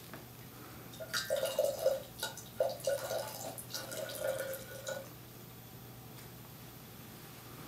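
Cold water poured from a bamboo ladle into a tea kettle, splashing and trickling with a ringing note. It starts about a second in and stops about five seconds in.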